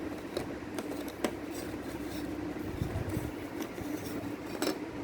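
Spoon stirring thick slime in a bowl, with a few light clicks of the spoon against the bowl, over a steady hum.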